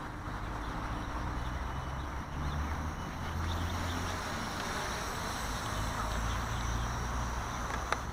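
Steady rumble of distant road traffic, with a single sharp click near the end.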